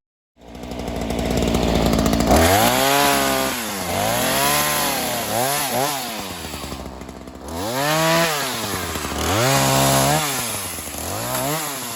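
Ryobi two-stroke chainsaw running, its engine pitch rising and falling again about six times as the throttle is worked.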